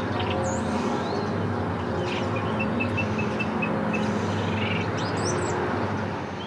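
Birds chirping, with one run of quick repeated chirps, over a steady low rumble and hum. The sound starts fading out near the end.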